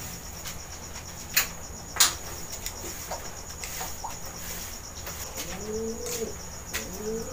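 Racing pigeons cooing in their loft, two rising-and-falling coos near the end, over crickets chirping steadily. Two sharp clacks come about a second and a half and two seconds in.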